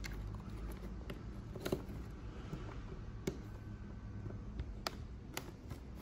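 Small plastic servo-style connectors clicking and wire leads rustling as signal cables are pushed back onto the flight controller's pins: a handful of sharp separate clicks, the loudest about a second and a half in, over a low steady hum.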